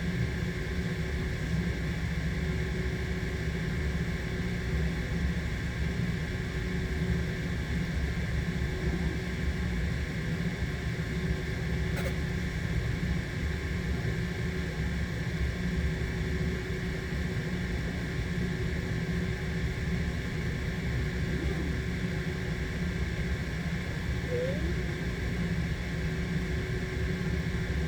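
Steady low drone of running building HVAC machinery, with a faint steady tone over it and a single click about twelve seconds in.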